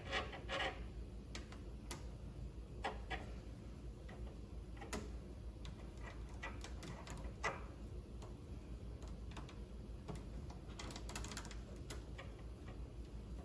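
Scattered light metal clicks and taps as the knurling tool and tool post of a stopped mini metal lathe are set by hand against the workpiece, with a few clustered runs of clicks, over a low steady background hum.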